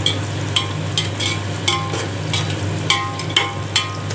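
Sliced onions frying in hot oil in a metal pot, sizzling steadily, while a spoon stirs and scrapes against the pot about two to three times a second. Some strokes leave a brief metallic ring.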